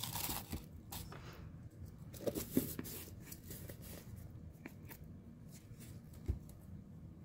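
Light handling noises of paper and art tools on a tabletop: a brief paper rustle at the start, a few soft scrapes and clicks, and a dull knock about six seconds in.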